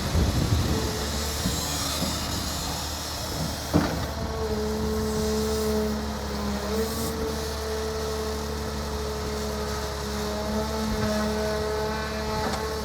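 Excavator running under a steady low engine hum, with a few clanks in the first second and a single sharp knock just before four seconds in, after which a steady whine holds.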